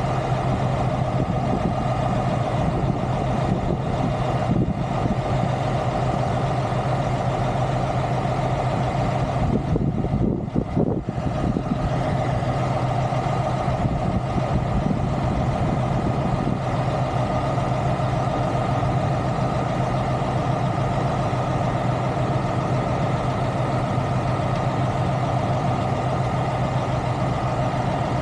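Heavy diesel truck engine idling steadily, with a constant low hum and drone. Around ten seconds in there is a brief dip and a few light knocks.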